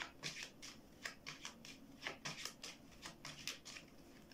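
A deck of rune cards being shuffled by hand: a quick run of short card strokes, about three or four a second, slightly uneven.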